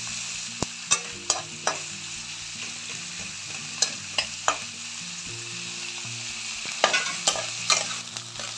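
Sliced onions and whole spices sizzling steadily in hot oil in a non-stick kadhai, stirred with a metal spatula that clicks and scrapes against the pan in short runs: about a second in, around four seconds, and again near seven seconds.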